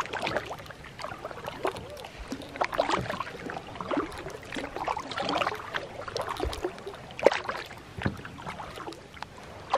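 Kayak paddle dipping and pulling through calm lake water, with irregular splashes and drips.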